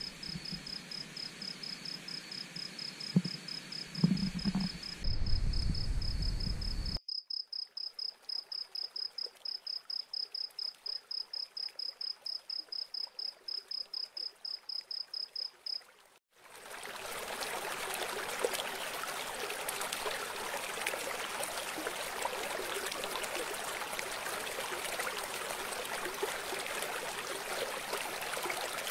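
A cricket chirping in a rapid, even pulse for the first half, with some low sound and two thumps about three and four seconds in. About halfway through it cuts off sharply and the steady rush of a flowing river takes over.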